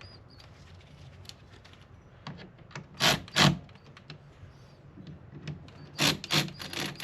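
Hand work with tools on engine-bay parts: scattered light clicks, then two short scraping rubs about three seconds in and a quicker run of rubs near the end.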